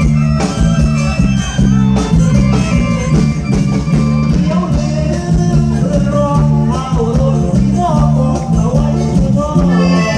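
Loud ramwong dance music played over a PA, with a steady repeating bass line; a singer's voice comes in about four seconds in.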